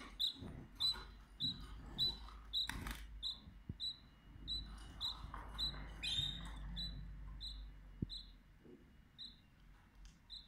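Canaries in a cage: a short, high cheep repeated steadily about every half second, slowing a little toward the end, with a few brief rustles or knocks, the loudest about three seconds in.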